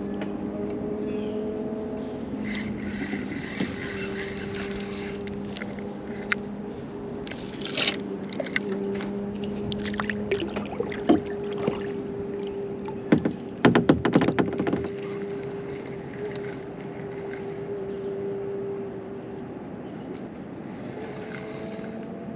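A boat motor droning steadily at an even pitch, fading out near the end, with a short burst of clattering knocks about two-thirds of the way through.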